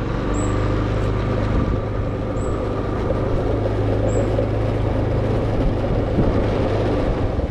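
Small motor scooter's engine running steadily as it rides off slowly at low speed.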